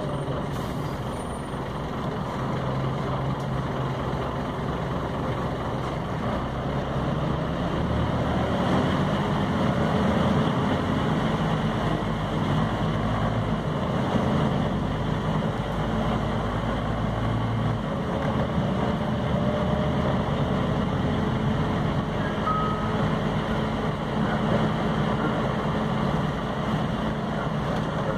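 Scania OmniCity city bus under way, heard from inside the passenger cabin: a steady engine and road noise whose low engine note shifts pitch a few times as the bus changes speed.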